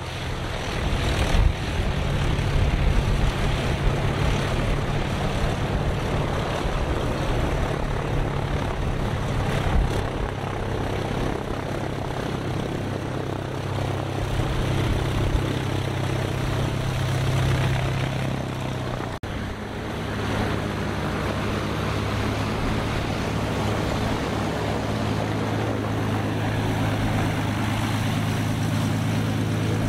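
Single-engine aerobatic propeller airplanes taxiing, their piston engines and propellers running at low power with a steady drone. About two-thirds of the way through the sound cuts to a second plane, whose drone sits at a slightly lower, steadier pitch.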